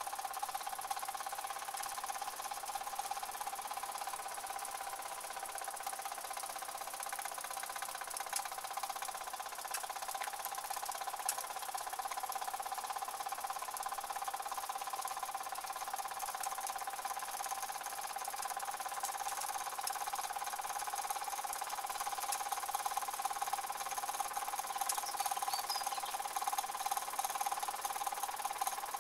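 Two small toy steam engines with oscillating cylinders running steadily on their boilers: a fast, even mechanical chatter with a hiss of steam and a steady high whine.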